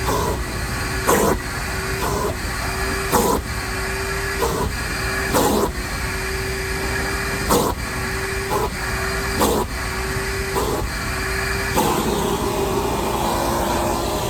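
Shop vac running with a steady motor whine, broken by short sharp knocks about once a second. About two seconds before the end the whine drops slightly in pitch and the rushing sound changes.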